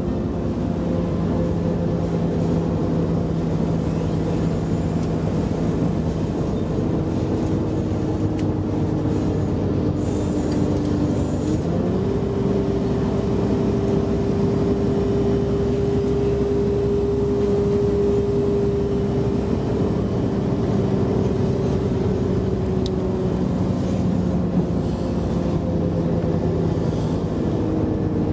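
Interior running noise of a British Rail Class 172 diesel multiple unit on the move: a steady underfloor diesel engine and transmission drone with wheel and rail rumble. One engine tone steps up in pitch about twelve seconds in and drops back near the end.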